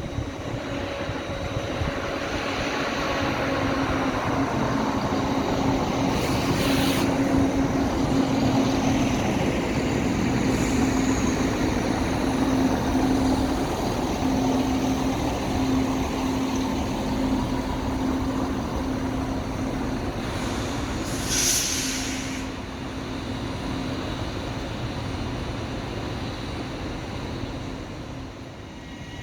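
A train running past at the platform: a steady drone with one held low tone over a broad rumble, fading near the end. Two short hisses come about seven seconds in and again about twenty-two seconds in.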